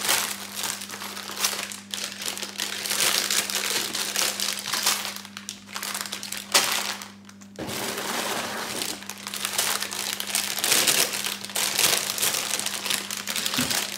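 Clear plastic bags of LEGO pieces crinkling as they are handled and turned over, with a sharp click about halfway through.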